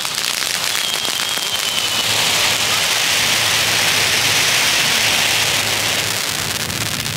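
Two Leslie Wondercone cone fountains (small category F1 fireworks) spraying sparks with a steady rushing hiss and fine crackling. The hiss swells a couple of seconds in and eases off toward the end.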